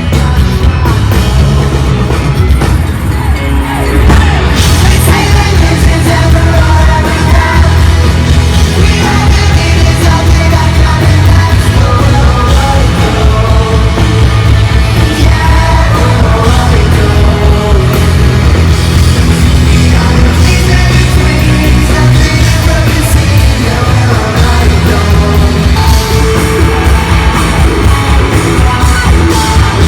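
Loud live rock music from a band playing on stage, with singing, recorded from the audience at a concert.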